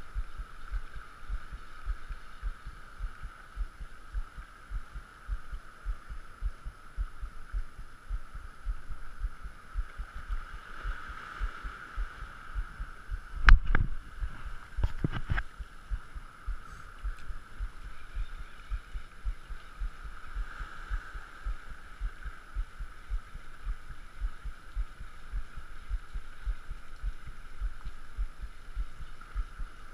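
Spinning reel being cranked through a lure retrieve: muffled, irregular low thumps under a steady whir. A couple of sharp knocks come about halfway through as the rod is swung for another cast.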